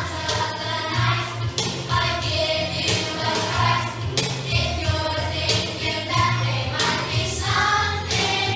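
Music: voices singing a song over an accompaniment with a steady bass line and beat.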